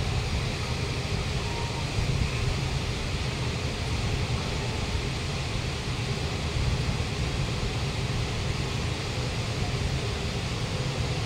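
Steady low drone of an underground metro station platform, a constant rumbling hum with a faint hiss over it and no distinct events.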